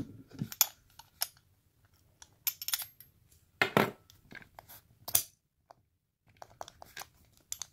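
Irregular sharp metallic clicks and knocks from a heavy padlock being handled and probed, a few louder ones standing out, with a brief pause near the end.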